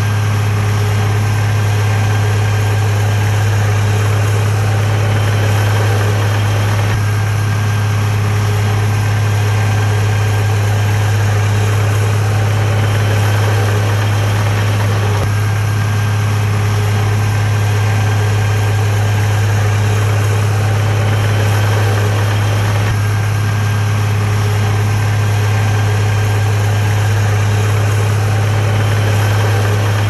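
Heavy diesel engine of earth-moving machinery running steadily: a loud, deep, even drone that does not change in pace.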